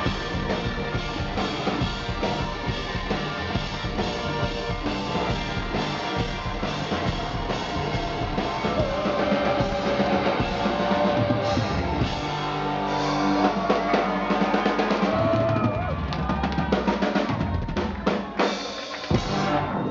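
Live rock band playing, with electric guitars over a full drum kit. Near the end the music breaks into a few hard, separate hits as the song closes.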